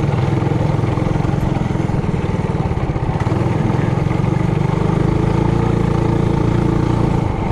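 Trailmaster Hurricane 200X mini bike's single-cylinder four-stroke engine running under throttle on the trail: a continuous low pulsing drone that settles to a steadier pitch about five seconds in.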